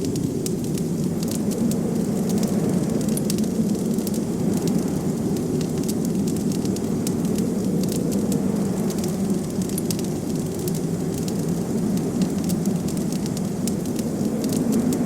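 Wood fire crackling with frequent small, sharp pops over a steady low rush of blizzard wind.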